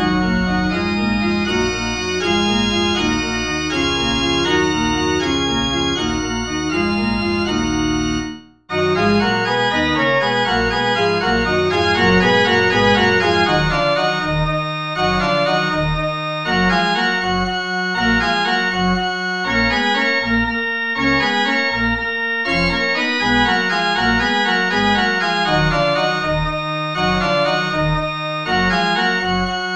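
Organ playing a fast fugue in D minor, several voices moving at once over held notes. It breaks off for a moment about eight and a half seconds in, then resumes, and from about fourteen seconds in short, detached bass notes repeat beneath the upper voices.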